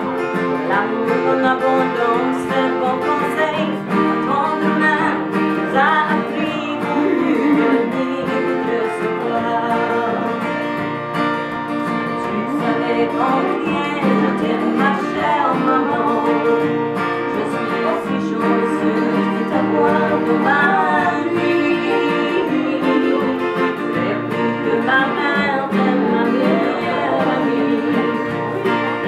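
Two acoustic guitars, one a Yamaha, strummed together in a country-style song while a woman sings with them.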